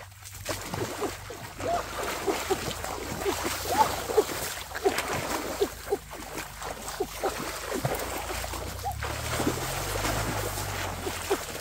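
Shallow muddy pond water splashing and sloshing without a break as a person wades and thrashes through it with arms and legs, with heavier churning near the end as they lunge into the water.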